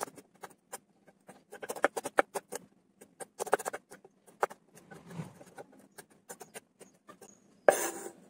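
Kitchen knife finely chopping red onion on a wooden cutting board: quick, irregular taps of the blade on the wood, some in fast runs. Near the end a louder scrape as the flat of the blade pushes the chopped onion across the board.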